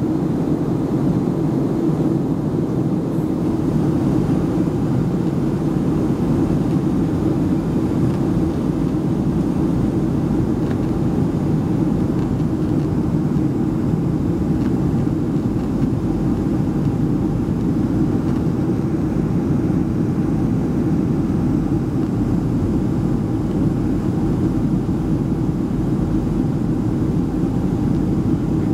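Steady cabin noise inside a Boeing 737-300 by an over-wing window: airflow and the CFM56-3 turbofans running on descent, an even low rush with a faint steady hum above it.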